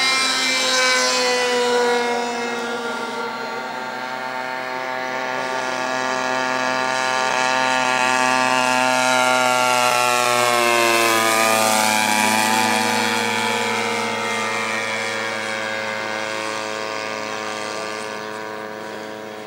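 Radio-controlled scale Cessna model plane's engine and propeller buzzing steadily in flight. It grows louder as the plane passes closest about ten seconds in, its pitch dips briefly and recovers just after, and then it fades as the plane flies away.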